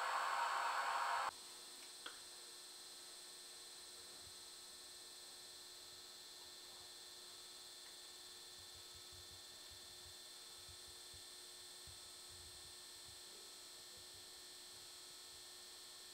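A rushing noise cuts off suddenly about a second in, leaving a faint, steady electrical hum with a single click about two seconds in.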